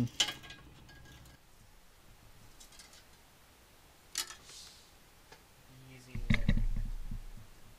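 Small parts and a computer case being handled: a few faint clicks, a sharp click about four seconds in, then a louder cluster of knocks and rattling near the end.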